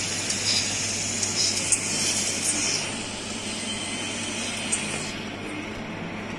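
Siemens ADVIA 1800 clinical chemistry analyzer in operation: a steady mechanical whir with a high hiss and light clicks from its moving parts. The hiss thins about three seconds in and again about five seconds in.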